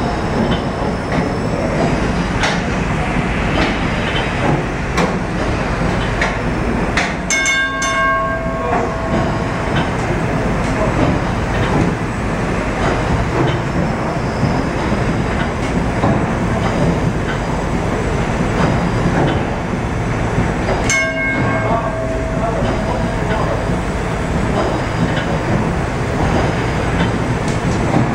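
Port paddle wheel of the paddle steamer Waverley, driven by her triple-expansion steam engine, churning through the water with spray splashing against the paddle box. A brief bell-like ring sounds twice, about seven and twenty-one seconds in.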